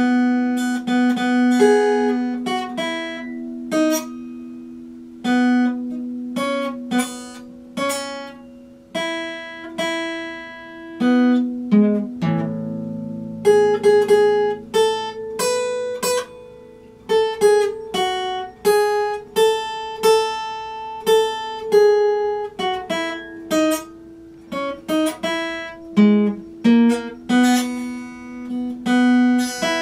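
Epiphone acoustic guitar played fingerstyle: a slow melody of single plucked notes and pairs of notes that ring on between short pauses. A fuller low chord rings out about twelve seconds in.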